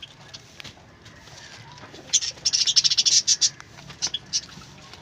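Birds chirping: a quick run of short, high chirps about two seconds in, then a few more near the end.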